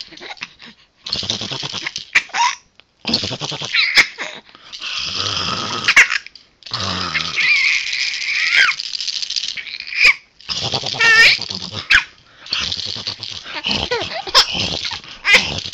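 A pet animal vocalizing in a string of short, raspy bursts, with low growly stretches and a few wavering cries.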